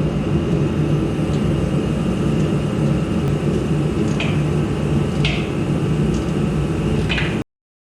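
Workshop space heater running steadily with a low hum and whir. A few short clinks sound about four, five and seven seconds in. The sound cuts off abruptly near the end.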